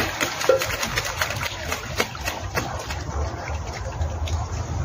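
Domestic geese splashing as they bathe and swim in a shallow stream, a run of quick irregular splashes over moving water.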